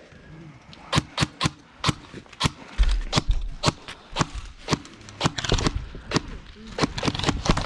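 Airsoft guns firing single shots: a string of sharp snaps at irregular intervals, about two a second, starting about a second in.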